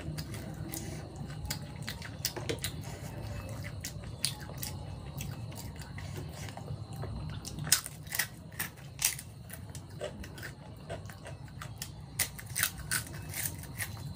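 Crisp papad being bitten and chewed close up: a run of sharp crackles, loudest and most frequent in the second half, over a steady low hum.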